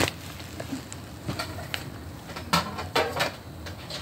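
Handling noise: scattered clicks and knocks, then a short burst of crinkly rustling and clatter about two and a half to three and a half seconds in, over a steady low hum.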